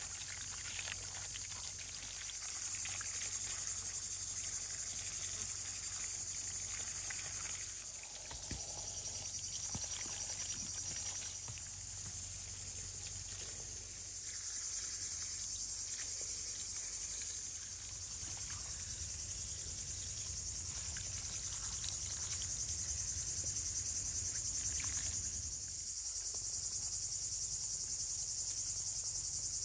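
Steady, high-pitched chirring of a cricket chorus, with water pouring, splashing and trickling over fruit in a basket at times.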